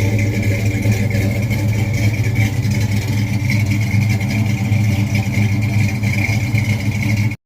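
Car engine running steadily, loud and even, then cutting off abruptly near the end.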